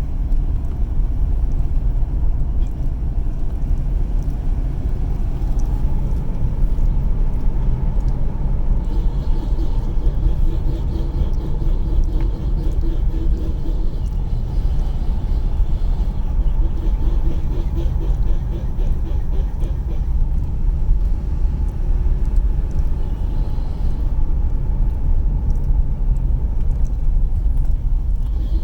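Steady low road and drivetrain rumble from a moving 2011 Ford Edge FWD. In the middle stretch a fast rhythmic ticking and a faint hum join in; the owner is trying to capture a noise that shows up when turning right and on hills.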